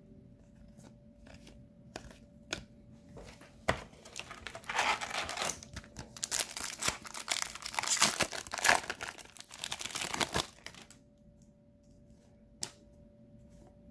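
Foil hockey card pack being torn open and its wrapper crinkled for several seconds, after a few light clicks and a sharp snap.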